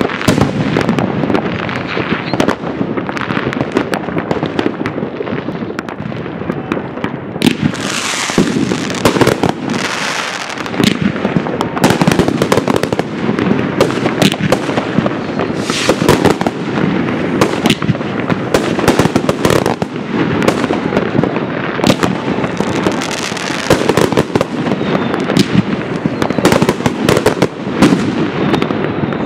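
Aerial fireworks shells in a large display: a continuous barrage of bangs and crackling bursts, with a couple of hissing rushes about eight to ten seconds in.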